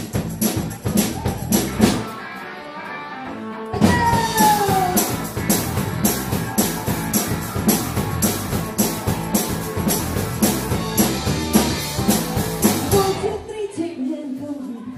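Live rock band playing: drum kit and electric guitar over a steady beat. About two seconds in, the drums and low end drop out for a couple of seconds, then the full band comes back in with a falling note, and shortly before the end the band drops to a quieter passage.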